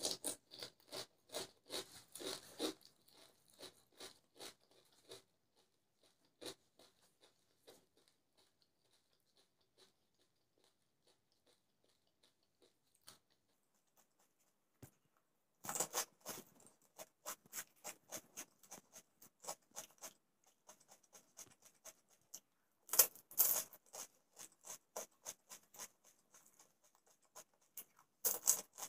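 Close-miked eating of golgappa (pani puri): the crisp hollow puri shells crunch loudly as they are bitten, followed by trains of quick wet chewing clicks. There are fresh bites about 16 s and 23 s in and again near the end, with a nearly silent stretch in the middle.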